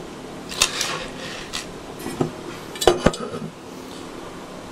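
Black finned aluminium heatsink being moved and set down on a wooden workbench: a handful of separate clinks and knocks, the two loudest close together about three seconds in.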